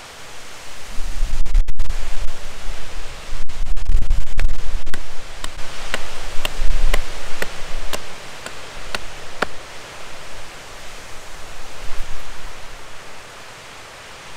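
Knife carving a hardwood fork blank on a stump: a run of sharp clicks from the knife strokes, about two a second, starting about five seconds in. Under it a loud steady hiss, with low rumbling gusts in the first half.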